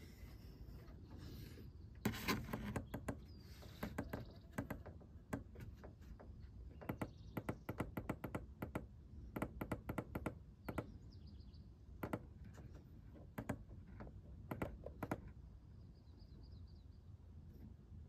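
A run of light, irregular clicks from fingers pressing the buttons on the Rivian R1T's built-in air compressor panel to set the target tyre pressure down; the compressor itself is not running. Faint bird chirps in the background.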